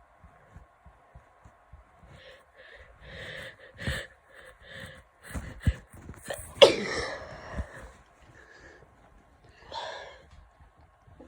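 A person with a cold catching their breath in short gasps, then sneezing once loudly about six and a half seconds in, the sneeze falling in pitch. A shorter breathy burst follows about three seconds later.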